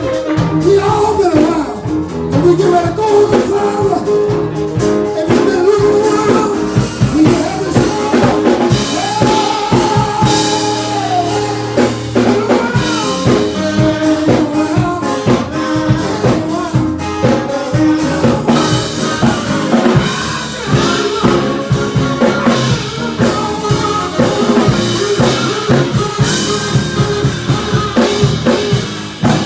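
Live soul band playing, with a steady drum-kit beat with rimshots, bass guitar and a melody line gliding over it.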